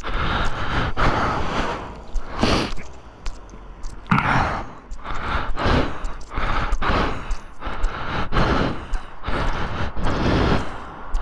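A person's breathing close to the microphone: irregular breathy puffs about once a second, over a low rumble of wind on the mic.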